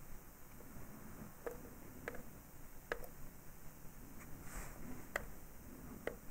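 Sharp little clicks of small parts of a vape tank being handled and worked by hand: about five ticks spaced a second or so apart, over faint handling noise.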